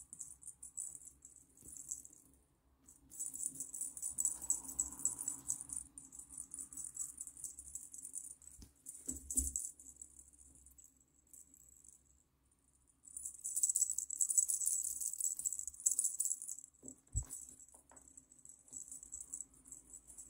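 A cat wand toy with pompoms, beads and tinsel strands shaken and swished, giving a high jingling rattle in bursts with short pauses between them. Two low thumps sound, about halfway through and again near the end, as the kitten pounces on the carpeted cat-tree platform.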